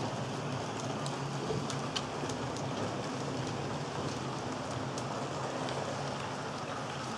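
HO-scale model trains, led by EMD F-unit locomotives, running on the layout: a steady rolling hiss of wheels on rail over a low motor hum, with scattered light clicks as the wheels cross rail joints and track switches.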